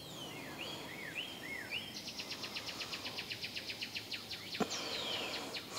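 Faint birdsong: a few short up-and-down chirps, then a fast, even run of high ticks, about eight a second, for about three seconds, with a falling whistle partway through.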